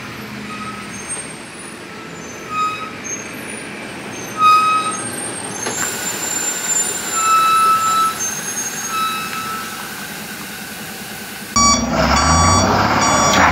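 A heavy multi-axle goods truck's engine running as it comes round a hill-road bend, with short high bird chirps over it. Near the end a louder truck engine comes in abruptly, with its reverse alarm beeping over and over as the truck backs up to make a hairpin turn.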